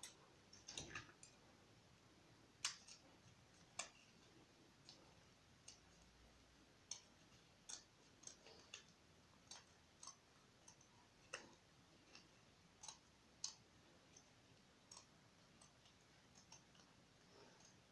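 Scissors snipping around a small paper cut-out: quiet, irregular snips and clicks, roughly one a second.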